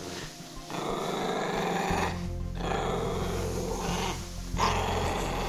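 Poodle growling in three long growls broken by short pauses, a warning at a man slowly approaching it. Low background music comes in underneath about two seconds in.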